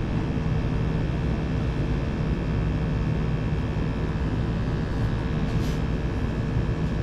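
York gas furnace running with its burners firing: a steady rushing noise with a low, even hum underneath.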